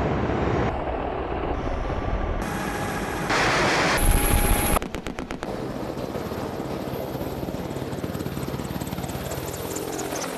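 AH-64 Apache attack helicopters in flight: steady rotor and turbine noise, changing abruptly at several cuts. It is loudest from about three to five seconds in, followed by a quick rattle of sharp strokes and then a steadier, quieter beat.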